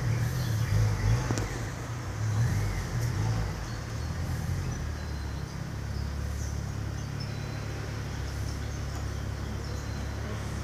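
A low rumble, uneven and louder for the first three seconds or so, then steady.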